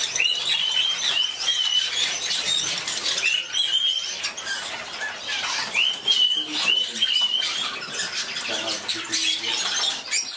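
Caged parakeets calling and chattering: runs of three or four short, high squawks that curl upward, recurring every few seconds, over constant chirping from many birds.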